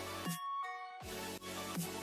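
Electronic background music with a beat. About a third of a second in, the bass and drums drop out for roughly half a second, leaving a few chiming notes, and then the beat comes back.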